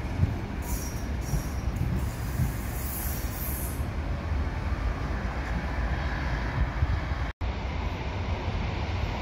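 EN71 electric multiple unit pulling away from the platform, its wheels rumbling on the rails, with faint high squeals in the first few seconds. About seven seconds in, the sound drops out for an instant at a cut and goes on as steady rail noise from another electric train approaching.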